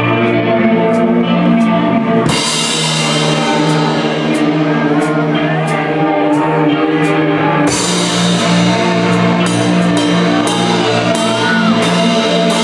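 A live two-piece band plays an ambient shoegaze song: sustained, layered, effects-laden guitar tones over a drum kit keeping a steady beat. Cymbal washes come in about two seconds in and again near eight seconds.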